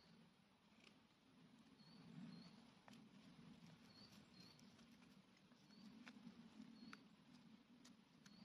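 Very faint scraping and shaving of wood with the detached steel head of a Cold Steel Trail Hawk tomahawk, with a few light ticks.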